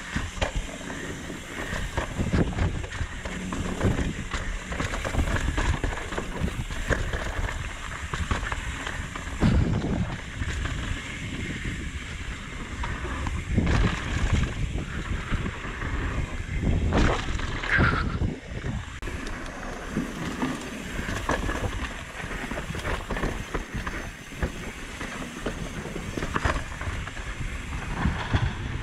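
Mountain bike riding fast down a dirt trail: tyres rumbling and crunching over dirt and rock, the bike rattling over bumps, with wind noise on the camera microphone. A brief squeal comes just past the middle.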